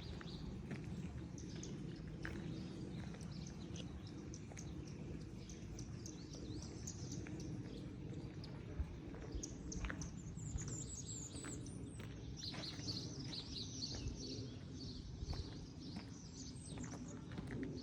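Small songbirds chirping and twittering over a steady low rumble of city noise, with the chirping busiest a little past the middle. Occasional sharp clicks sound among it.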